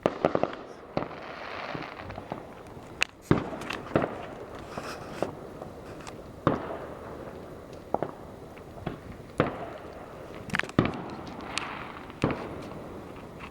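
Fireworks going off: a dozen or so sharp bangs and pops at irregular intervals.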